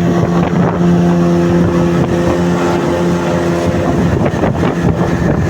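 Motorboat engine running at a steady speed.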